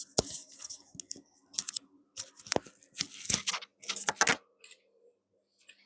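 Multimeter probe tips scratching and clicking against the contacts of a headphone extension lead's jack plugs in a series of short, irregular scrapes, testing the lead for continuity.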